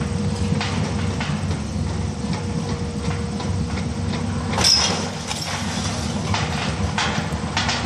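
Demolition crane's engine running steadily under an irregular clatter of brick and debris falling from the wrecked building, with one louder crash of falling debris about four and a half seconds in.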